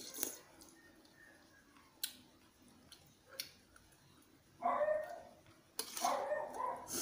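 A dog barking: a short bark past the middle, then a longer run of barks near the end. A few faint clicks of eating come before the barks.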